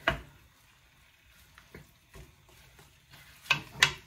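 A cooking utensil clanking and scraping in a pan of chicken thighs browning in butter, with a faint sizzle beneath. There is one sharp clank at the start and two more close together near the end.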